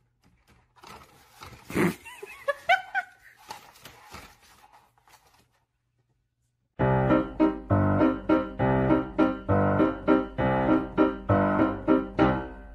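Keyboard music with a steady beat comes in about seven seconds in and is the loudest sound. Before it there is a thump and a few short pitched sounds that rise and fall, then a brief gap of near silence.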